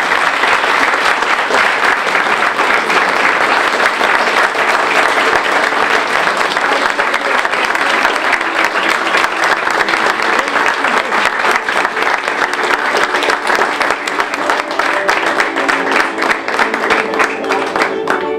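Audience clapping steadily by hand, a room full of people. About two-thirds of the way in, music with held, sustained notes fades in beneath it, and the clapping stops abruptly just before the end.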